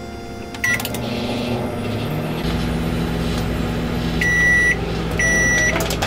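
Microwave oven being started: a short button beep about a second in, then the oven begins running with a steady low hum from about two and a half seconds, and two longer beeps near the end.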